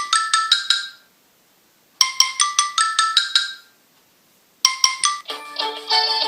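A Samsung Galaxy J1 Ace ringtone: a short run of quick, bright, mallet-like notes that loops about three times, with about a second of silence between repeats. Near the end a different, fuller ringtone melody starts.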